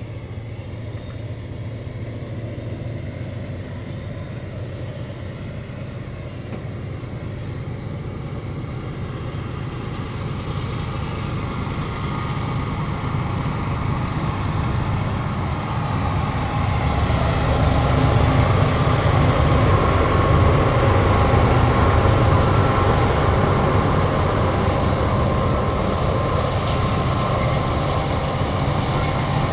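CSX mixed freight train coming up and rolling past, a steady low rumble with wheel noise. It grows louder over the first half and peaks past the middle, then holds as the cars roll by.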